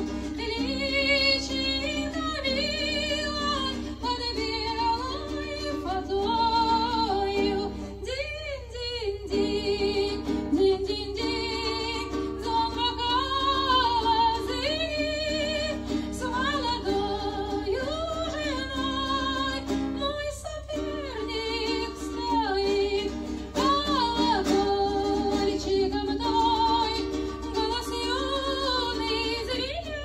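A woman singing a song live, accompanying herself on an acoustic guitar, her voice carrying the melody in long held notes with vibrato. A steady low hum runs underneath.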